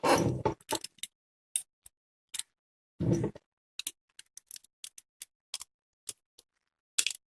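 Small, irregular clicks and ticks with a brief scrape about three seconds in: a wire being fitted and its terminal screw worked on a one-way light switch.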